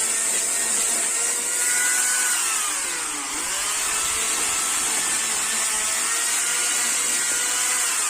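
Chainsaw running at speed. Its pitch sags about three seconds in as the chain bites into wood under load, then climbs back and holds steady.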